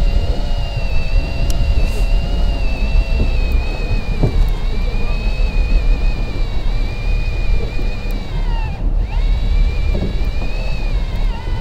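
Electric fishing reel winding in line: a steady motor-and-gear whine that wavers in pitch, drops sharply about nine seconds in and then picks back up, over a steady low rumble.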